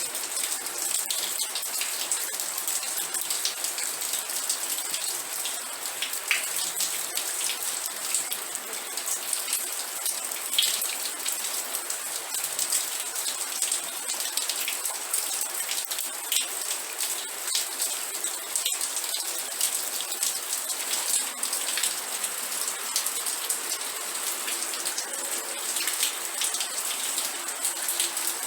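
Steady rain falling, a dense hiss with many individual drops pattering on a hard surface.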